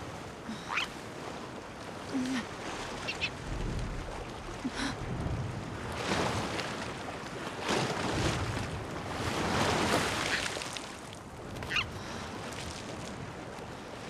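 Sea surf washing against a rock, swelling in the middle, with several short squawks from a silver gull scattered through.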